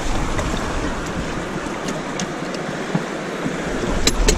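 River water rushing and splashing steadily around a boat's motor leg in shallow water. Two sharp clicks come close together near the end.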